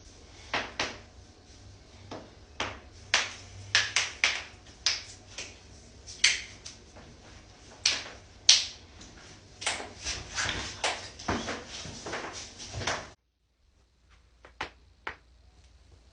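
Joints cracking and popping: a long irregular run of sharp cracks, some in quick clusters, which breaks off suddenly about thirteen seconds in, followed by a few more scattered cracks.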